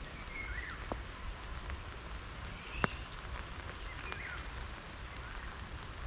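Steady patter of spring rain falling on the leaves and blossoms of flowering shrubs, with a sharper single drop hit about three seconds in. A bird gives a short chirping call with a falling slur a few times over the rain.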